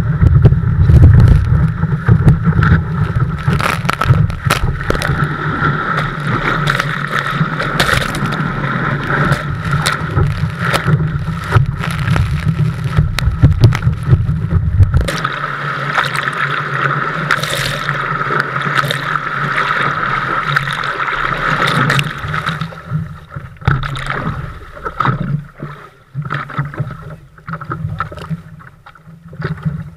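Water rushing and spray splashing against a Kona 11'5 windsurf longboard planing at speed, with a heavy wind rumble on the board-mounted camera's microphone and many sharp spray hits on it. The sound changes abruptly about halfway through and grows quieter and more uneven near the end, turning to slow water lapping around the board as it drifts.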